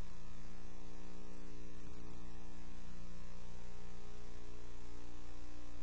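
Steady electrical mains hum with a buzzy stack of overtones, unchanging throughout.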